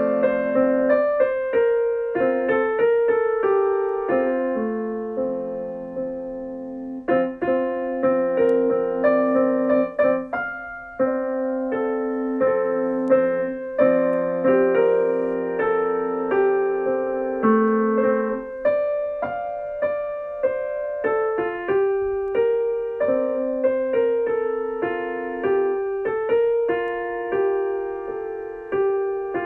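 Background music: a piano melody over chords, with two brief breaks about 7 and 11 seconds in.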